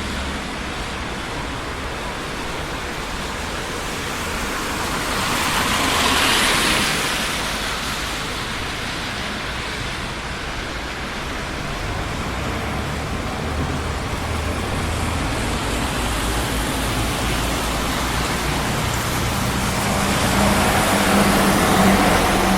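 Steady noise of traffic on a busy city street. One vehicle swells past about six seconds in, and another with a low engine hum builds near the end.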